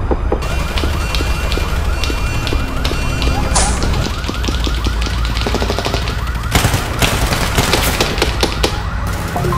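Fast-warbling electronic alarm siren, its pitch sweeping up and down several times a second without a break, over a low rumble. A run of sharp cracks comes about two-thirds of the way through.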